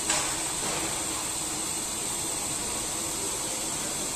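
CNC duplex milling machine's twin face-milling cutters cutting opposite sides of a steel block: a steady hiss of cutting with a constant high-pitched whine, and one short sharp click just after the start.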